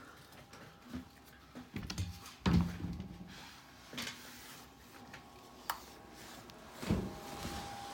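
Metal ladder being handled and set up: scattered knocks and clunks, the loudest a low thump about two and a half seconds in, with a sharp click and another thump later on.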